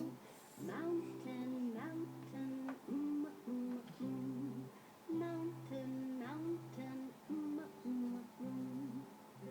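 A child singing the phonetic sounds of the alphabet to a tune, letter sound by letter sound, over a low instrumental accompaniment in short repeating phrases.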